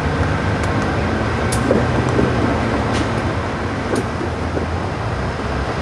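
GE C44-9W (Dash 9) diesel-electric locomotive leading a passenger train, its diesel engine running with a steady low drone as the train rolls slowly in, with a few sharp clicks now and then.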